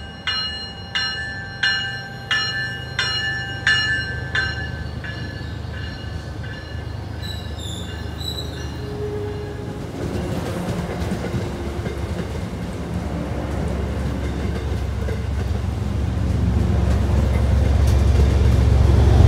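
MBTA commuter train's bell ringing in evenly spaced strokes, about one and a half a second, stopping about four seconds in. A few brief high squeals follow. Then the low rumble of the passing bilevel coaches grows steadily louder toward the end.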